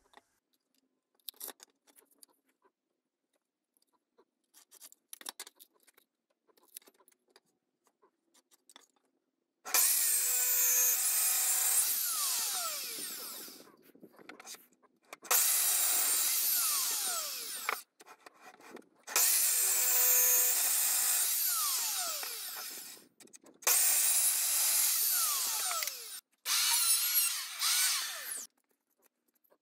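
Electric sliding mitre saw cutting wooden boards: five loud runs, each starting abruptly and winding down with a falling whine. Before them come light taps and knocks of boards being handled.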